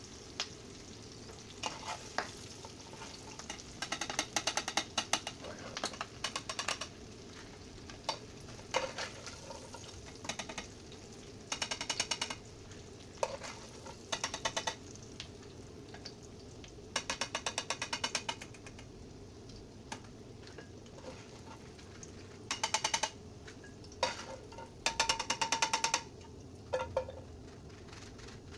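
Calamari frying in a pan with a steady sizzle. Every few seconds a utensil stirs and scrapes against the pan in short bursts of rapid clicks.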